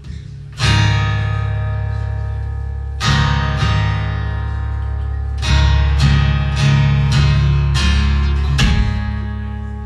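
Solo acoustic guitar playing an instrumental tune: full strummed chords that are left to ring out. A chord lands about half a second in and another around three seconds, then a quicker run of strums from about five and a half to nine seconds.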